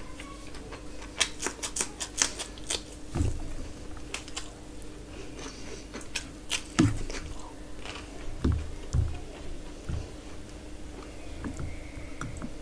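Close-miked chewing of chicken and rice eaten by hand, with sharp wet clicks and smacks in two clusters and several soft low thumps.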